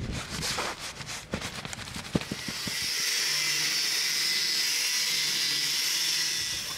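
Scattered clicks and knocks, then a handheld angle grinder cutting a steel bar: a steady, high-pitched grinding hiss that starts about two and a half seconds in and stops near the end.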